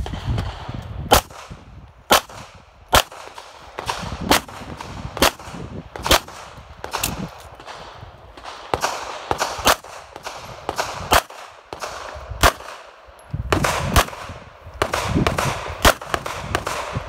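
Semi-automatic pistol fired shot by shot, a string of about fifteen sharp shots spaced roughly a second apart, each with a short echo trailing it.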